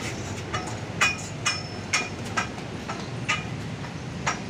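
Metal pipes of a canopy frame being struck, a run of sharp metallic knocks about every half second, each ringing briefly.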